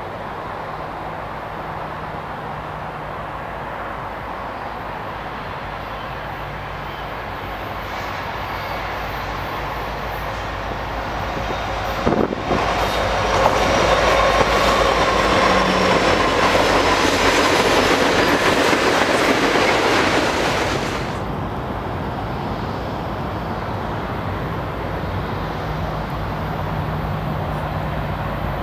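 Freight train of flatcars loaded with concrete railroad ties rolling past: a steady diesel locomotive drone and rolling rumble that builds, then a sharp clank about twelve seconds in as the cars come close, followed by loud wheel-on-rail noise with a faint squeal for about eight seconds before it falls back to a steadier rumble.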